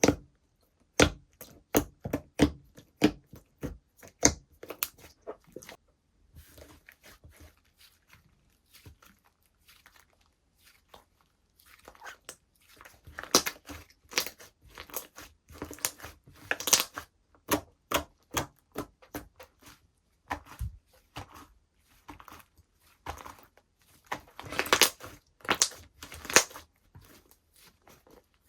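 Hand-played slime being pressed, stretched and poked, giving sharp clicking pops of trapped air and crackles. The clicks come about twice a second for the first few seconds, then the sound goes quieter, and denser crackling bursts follow from about twelve seconds in.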